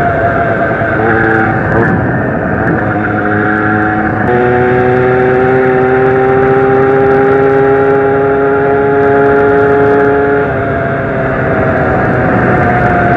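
Zanella 70cc two-stroke moped engine running under way. Its pitch shifts up and down a few times at first, then it holds a steady note for about six seconds before easing off near the end.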